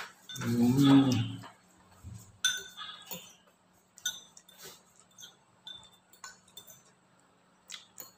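A short burst of a man's voice about half a second in, then a metal spoon clinking lightly against a bowl as noodles are eaten from it: about ten small clinks, unevenly spaced.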